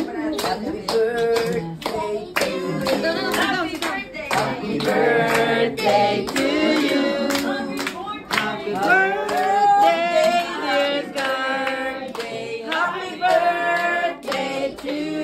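Singing with a steady beat of hand claps, about three claps a second.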